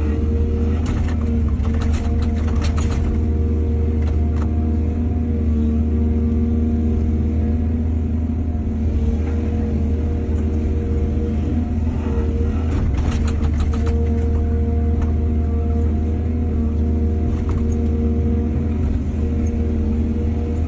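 Hydraulic excavator's diesel engine running steadily under load, with two spells of clattering, one near the start and one about midway.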